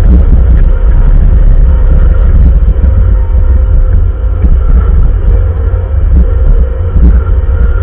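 Bobcat loader's diesel engine running steadily, a loud low rumble with a faint steady higher tone over it.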